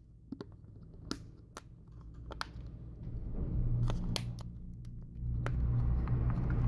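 Scattered small, sharp clicks and taps of a Samsung Galaxy S4's plastic back frame being fitted and pressed onto the phone. A low rumble comes in about halfway through and grows.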